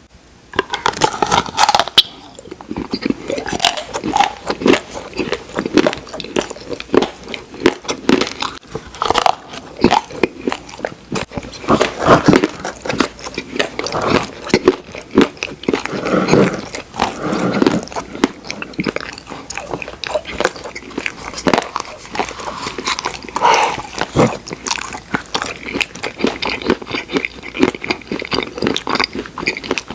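Close-miked mouth sounds of eating Oreo ice cream: continuous wet chewing and smacking, with many quick clicks and small crunches of cookie pieces.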